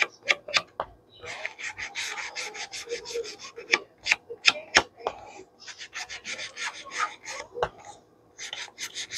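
Quick rubbing and dabbing strokes on paper in several runs with short pauses between, as ink is worked into the paper to distress and grunge it.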